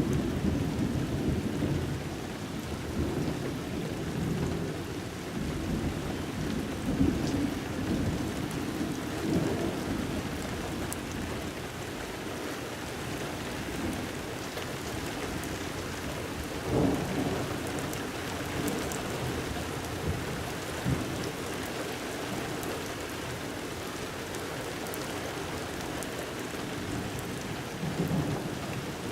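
Steady rain with low, rolling thunder. The rumble is heaviest at the start, eases, then swells again with a louder peak about halfway through, and there are a few shorter bumps along the way.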